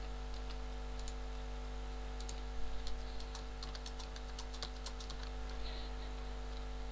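Computer keyboard keystrokes, a quick run of key clicks about a third of the way in and a few scattered ones after, over a steady low electrical hum.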